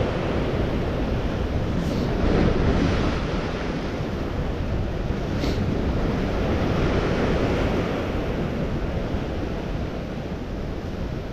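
Rough sea surging and breaking against a rocky breakwater, with wind buffeting the microphone as a low rumble. The surf swells up about two seconds in and again around seven seconds.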